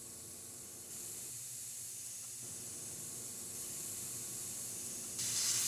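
Dual-action airbrush hissing steadily as it sprays through the freshly unclogged nozzle, now spraying clean. The hiss steps up slightly about a second in and turns into a louder burst near the end.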